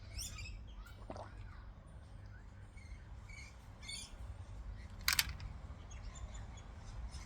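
Faint birds chirping now and then, over a steady low rumble, with one sharp click about five seconds in.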